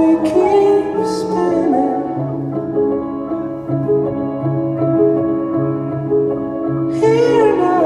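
Slow live piano-keyboard music with held chords and a low bass line. A man's singing voice carries the melody for the first two seconds and comes back in near the end.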